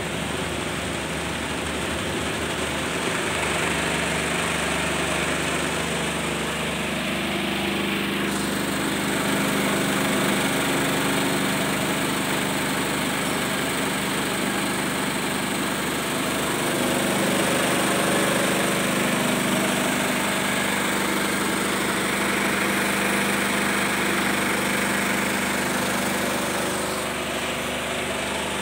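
Vibro sifter running: its vibratory motor shakes the stainless steel sieve deck with a steady mechanical hum while powder is screened through the mesh and pours from the discharge spout.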